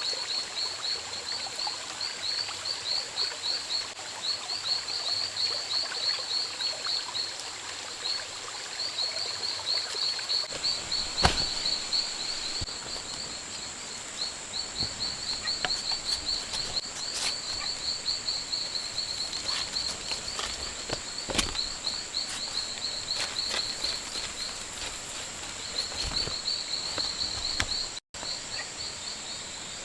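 Rainforest ambience: a steady high-pitched insect drone, with repeated runs of rapid high chirping pulses and a few sharp knocks.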